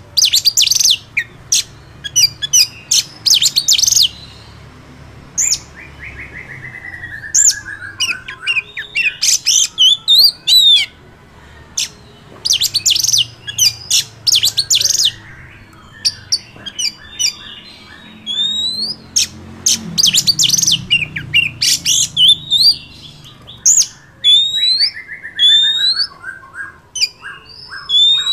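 Oriental magpie-robin singing: loud clusters of quick sharp notes mixed with clear rising whistles, and twice a run of notes stepping down in pitch.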